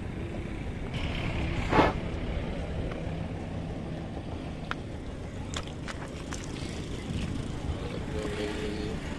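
Steady low engine rumble and hum, with one sudden loud burst of noise about two seconds in and then a handful of sharp clicks and knocks, as a cast net is hauled up over a metal railing.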